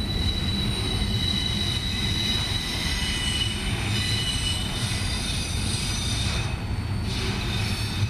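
Steel wheels of freight cars squealing as they roll slowly around a tight curve, high, shifting squeal tones over a steady rumble of the train. The squeal fades for a moment about six and a half seconds in, then returns.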